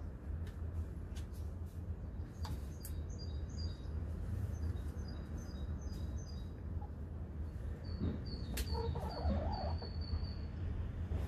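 Domestic chickens calling in a pen, with a hen's call about eight to ten seconds in. Strings of short high chirps and a few sharp clicks come over a steady low rumble.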